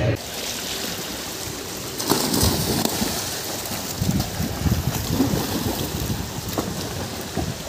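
Swimming-pool water splashing and churning as several swimmers kick along just under the surface after a group dive, with irregular bursts of splashing every second or so.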